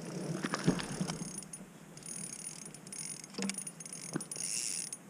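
Fishing reel clicking and buzzing in short runs as a hooked fish is played, the drag slipping and the gears ratcheting.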